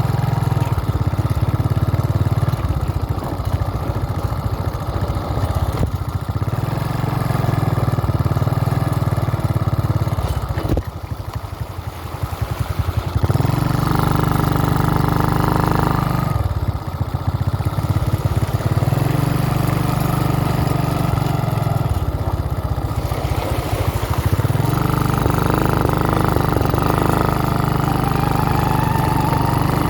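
Motorcycle engine running as it rides, the throttle opening and easing several times, dropping off briefly about eleven seconds in before pulling again.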